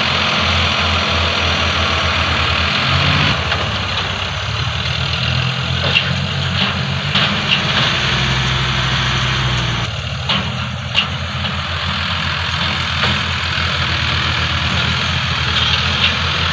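Farm tractor's diesel engine running as it tows a loaded trailer across a muddy paddy field, a steady low throb whose note shifts about three seconds in and again near ten seconds.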